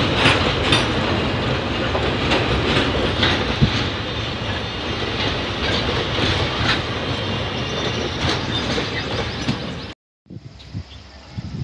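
Container freight train's wagons rolling past, wheels clacking over rail joints in a steady rhythm as the brake van goes by at the tail. The sound cuts off suddenly about ten seconds in, and a much quieter outdoor background follows.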